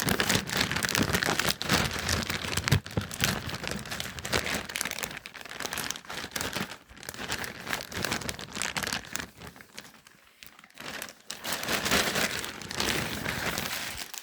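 Packaging crinkling and rustling as it is handled during an unboxing, in an irregular run of crackles that eases off briefly about ten seconds in, then starts again.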